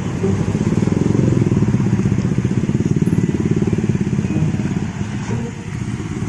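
A vehicle engine running close by with a rapid, even pulse. It is strongest for the first few seconds and eases off about five seconds in.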